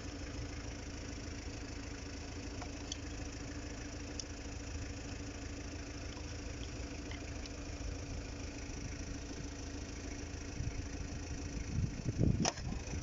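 Steady low mechanical hum with faint scattered clicks, and a few louder knocks and scrapes near the end as the new transmission selector position sensor is worked into place.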